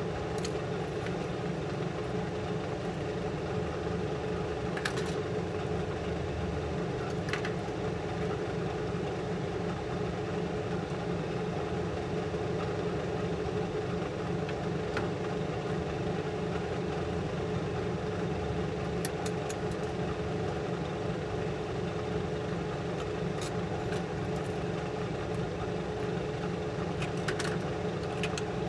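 Steady electric motor hum with a constant pitched tone, and a few light clicks and taps from handling the hard drive's metal cover.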